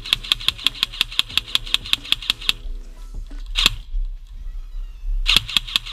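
Airsoft electric gun (AEG) firing: a rapid string of shots at about eight a second for about two and a half seconds, a single shot about three and a half seconds in, and another string of shots near the end.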